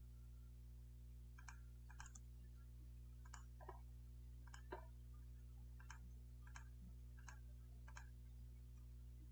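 Faint computer mouse clicks, about nine spread irregularly, over a steady low electrical hum.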